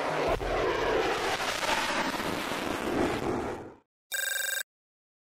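An F-35's Pratt & Whitney F135 turbofan roars in a steady jet flyby, with a slowly shifting whoosh, until the sound cuts off suddenly. After a short silence comes a brief electronic ring, about half a second long.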